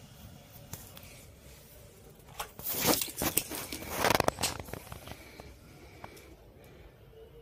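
Rustling and clatter of wires and small parts being handled on a work surface, a run of short scraping and knocking sounds that is loudest from about two and a half to four and a half seconds in.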